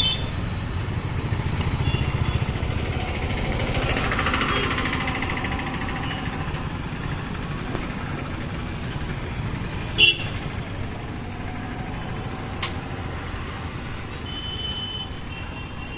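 Busy street traffic with engines of passing vehicles running, and a short vehicle horn toot about ten seconds in.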